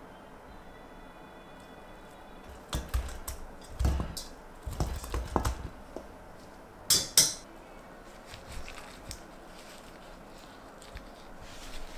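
Kitchenware being handled: dishes and utensils clatter and knock on a counter in a run of short bursts, then one sharp clink about seven seconds in.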